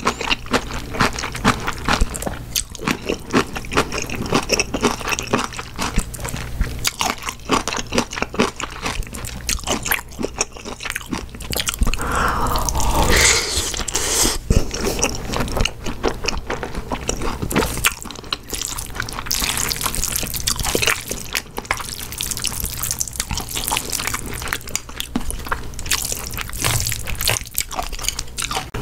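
Person eating jjapaghetti black-bean noodles with kimchi: continuous wet chewing and crunching with many quick mouth clicks, and a longer, louder slurp of noodles about twelve seconds in.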